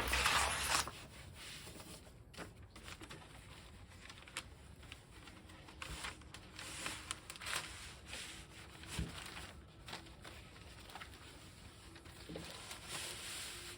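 Faint rustling, crinkling and rubbing of wallpaper being handled and smoothed onto a wooden closet panel, with scattered light taps and clicks.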